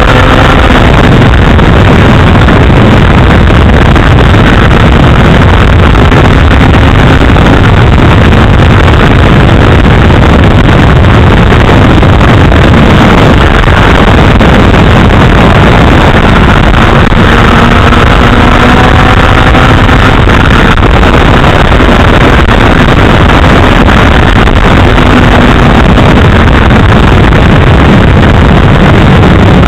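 Loud, constant wind noise blasting the microphone of a keychain camera on a 2008 Honda CBR1000RR being ridden on the road. The bike's inline-four engine is heard faintly underneath, its pitch climbing a few times as it pulls through the gears.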